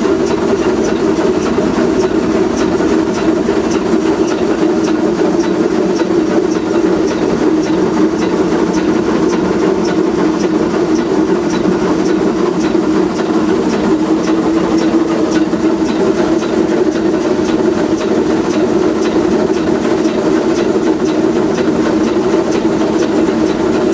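Oil-fired Shay geared steam locomotive (Westside Lumber No. 12) working, heard inside its cab: a steady, even din with a fast, regular beat of light clicks running through it.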